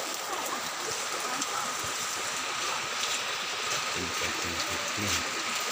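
Steady rain falling and splashing on wet concrete ground.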